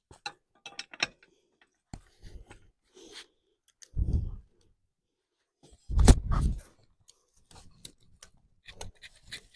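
Ratchet strap being worked around a tree, with irregular metallic clicks from the ratchet and strap hardware. Two heavier, deeper thumps come about four and six seconds in.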